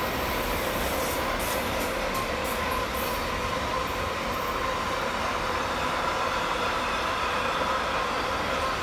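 Freight train container wagons rolling past steadily on a curve, a continuous wheel-and-rail rumble with a thin, steady squeal of wheels running over it.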